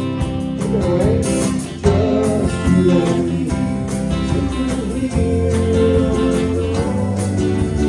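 Live band playing a song with guitars over a steady beat, amplified through a PA.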